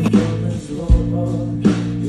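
Live pop-rock band music with a male lead vocal, over sustained bass notes and a kick drum.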